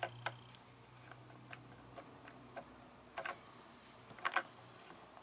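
Scattered light clicks and taps from a gas strut and its metal mounting bracket being handled against a cabinet while a drill hole is marked, with a short cluster of clicks near the middle and another near the end. A faint low hum fades away in the first second or so.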